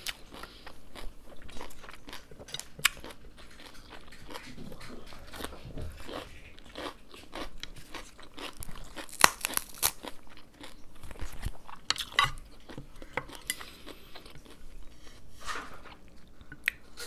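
Close-up chewing and crunching of food in a person's mouth, with irregular sharp crunchy bites, the loudest about nine and twelve seconds in.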